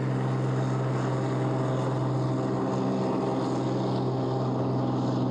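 Floatplane's propeller engine running at high power on its takeoff run across the water: a loud, steady drone that holds one pitch.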